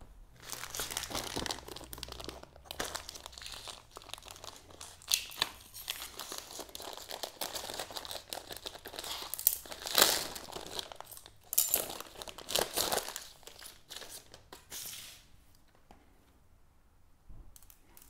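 Plastic packaging crinkling and tearing as a new brake cable set is unwrapped, in irregular bursts that are loudest about ten seconds in and die away in the last few seconds.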